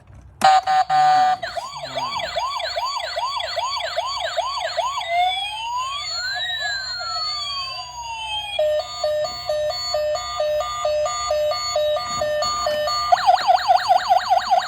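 Toy police car's electronic siren sounding through its small speaker and cycling through patterns: fast repeated yelps, then a slow rising and falling wail, then a stepping two-tone hi-lo, then fast yelps again.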